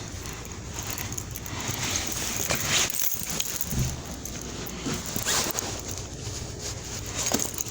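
Rustling of heavy winter clothing with scattered light knocks and clicks as shoes are put on.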